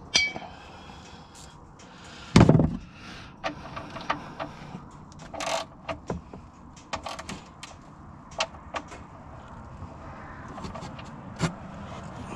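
Ratchet and 16 mm socket clicking and clinking at irregular intervals while the drain plug is screwed back into the plastic oil pan and tightened, with one loud knock about two seconds in.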